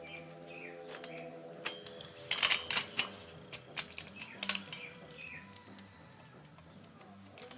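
Metal tools and small engine parts clinking and clattering as they are handled, loudest in a quick cluster of clinks a little over two seconds in, then a few single clinks. Music plays steadily in the background.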